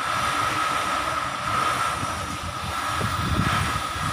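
Steady mechanical background noise with an even, high whine. A few soft knocks come from hands handling the angle grinder's plastic housing while its wires are tucked in.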